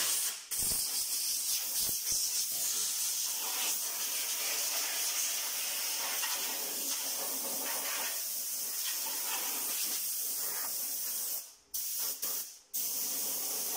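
Compressed air from a blow gun hissing steadily as it blows dust out of an open video processor's circuit boards, cutting off briefly twice near the end.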